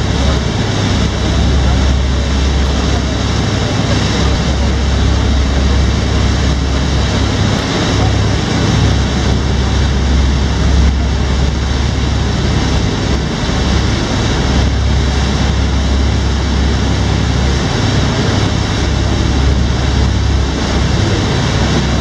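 Passenger excursion boat under way at cruising speed: a steady low engine rumble under the constant rush of its churning wake.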